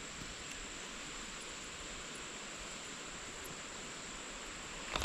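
Steady outdoor background hiss with a faint constant high-pitched tone through it.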